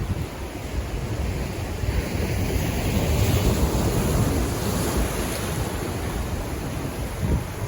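Pacific Ocean surf: a wave swells about two seconds in and eases off after about five seconds. Wind rumbles on the microphone.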